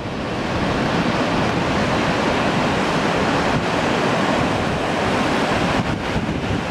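Surf breaking on the shore, a steady rushing noise, with wind buffeting the microphone.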